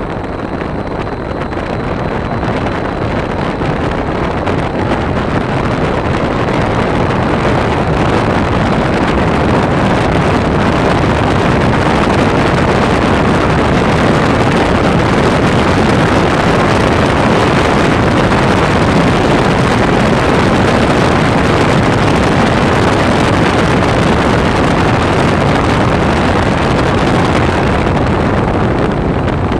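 Strong artificial wind from a disaster-centre typhoon simulator blowing over the microphone: a loud, even rush that builds over the first ten seconds or so, holds steady, and eases slightly near the end.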